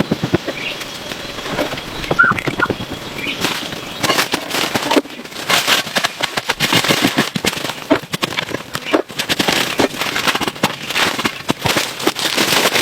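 Dense, irregular crackling and snapping, many sharp pops in quick succession, with a few short high chirps early on.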